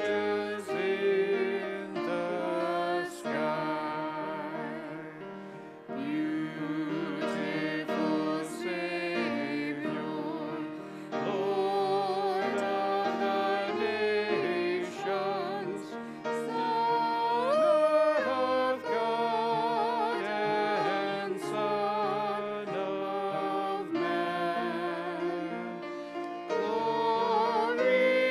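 A hymn sung by voices with instrumental accompaniment, the held notes wavering slightly.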